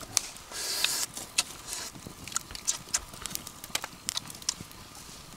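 Wood campfire crackling, with irregular sharp pops and a brief hiss about a second in.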